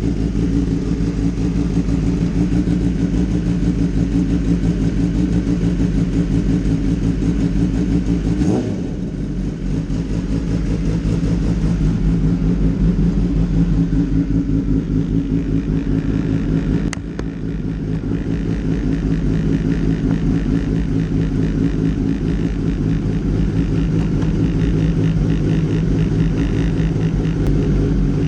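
Kawasaki ZX-10R inline-four engine running steadily through an Arrow GP exhaust. The level dips briefly twice, about a third and about two thirds of the way in.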